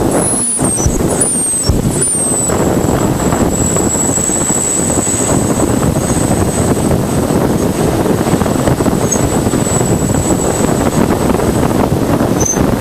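Voyager 1 plasma wave instrument recording of radio waves in Jupiter's magnetosphere, played back as sound: a dense, steady rushing hiss with a thin high tone held throughout. A few short falling whistles come in the first two seconds.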